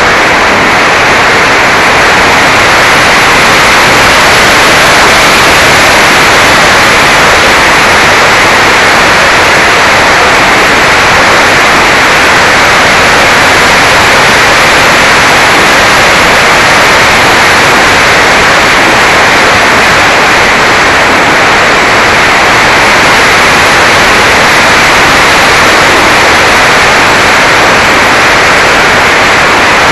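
Loud, steady rushing noise of airflow and propeller picked up by the onboard Mobius mini camera's microphone on a Mini Talon RC plane in flight, with no clear motor whine standing out.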